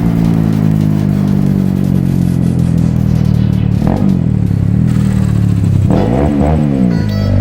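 Bajaj Rouser NS 200 single-cylinder engine running through a Paolucci aftermarket sport exhaust, holding a steady pitch, then blipped up and down in quick revs around four seconds and twice about six seconds in.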